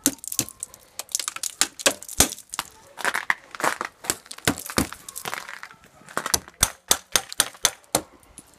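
Ice being chipped and scraped off a motorcycle's painted metal frame and fender with a metal scraper blade: many sharp, irregular cracks with crunching scrapes between them as the ice breaks away.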